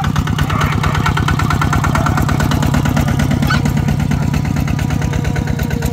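Two-wheel walking tractor's single-cylinder diesel engine chugging steadily in even pulses as it pulls a loaded trailer across the field.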